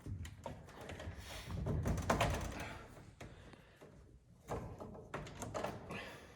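Scattered knocks, clicks and handling noise, with a denser burst of rustling and clatter about two seconds in.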